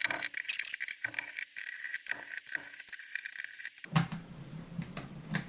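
Quick small clicks and rattles of a laptop being handled.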